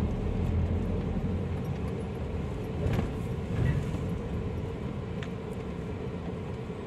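Daihatsu Terios running at low speed in a fuel-station queue, heard from inside the cabin as a steady low rumble. There are two faint clicks, about three and five seconds in.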